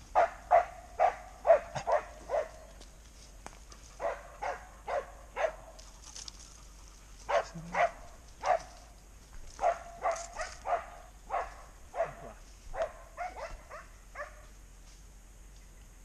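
Dog barking in runs of four to seven quick barks with short pauses between, stopping shortly before the end.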